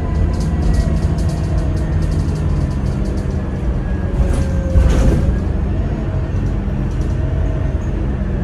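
Alexander Dennis Enviro300 single-deck bus under way, heard on board: a steady low engine rumble with whining tones that slowly drift in pitch. Light rattling clicks come in the first few seconds, and a brief louder rush of noise comes about five seconds in.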